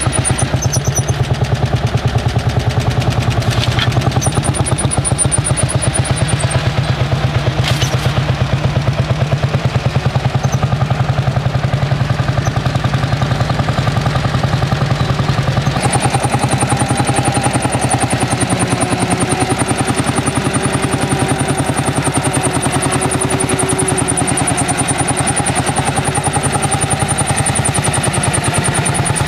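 Lanz Bulldog tractor's single-cylinder two-stroke hot-bulb engine running with a steady, rapid chugging beat of even pulses.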